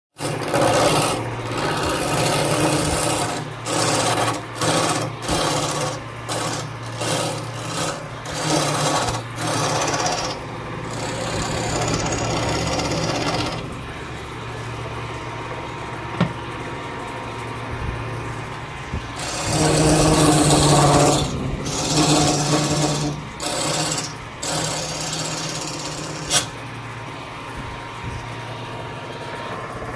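Wood lathe running with a steady hum while a hand-held turning tool cuts a spinning wooden spindle, giving repeated rough scraping strokes as shavings come off. The cutting stops for several seconds around the middle, leaving only the lathe running, then comes back in a few more strokes.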